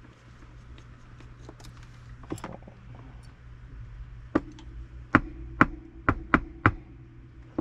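Small metal spinning-reel parts and hand tools clicking and tapping as they are handled and set down on a workbench during disassembly: a few faint ticks, then about six sharp clicks in quick succession in the second half.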